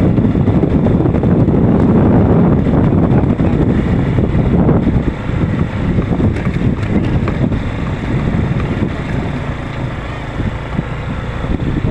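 Motorcycle running while being ridden, mixed with heavy wind buffeting on the microphone.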